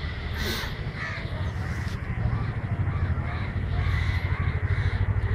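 Crows cawing a few times over a steady low rumble.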